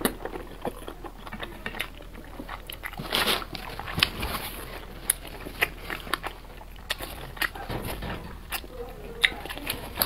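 Close-miked chewing with wet mouth clicks and lip smacks at irregular intervals, and a louder, longer chewing sound about three seconds in.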